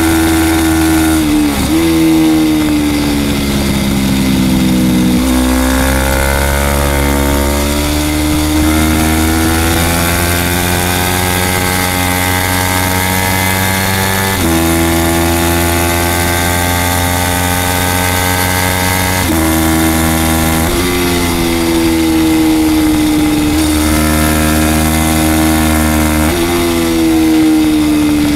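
A 300-class superstock race motorcycle's engine held at high revs at racing speed, its pitch rising through the gears and stepping abruptly several times at gear changes, over steady wind rush.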